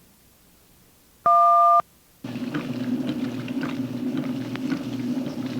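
A short, steady two-tone beep about a second in: a filmstrip advance tone, the cue to change to the next frame. From about two seconds in, a steady low machine hum with faint clicks follows: a washing machine running on its electric motor.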